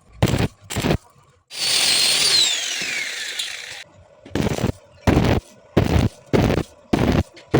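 Welding arc struck in short, evenly spaced bursts, a little under two a second: stitch welding to bridge a poorly fitted corner joint. In the middle a power tool runs for about two seconds, its whine falling in pitch as it winds down.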